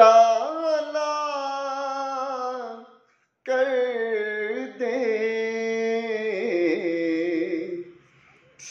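A man singing a naat unaccompanied, drawing out long wavering vowels in two sustained phrases, with a short breath pause about three seconds in and another near the end.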